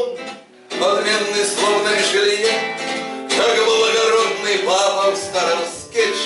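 A man singing a bard song, accompanying himself on a strummed acoustic guitar.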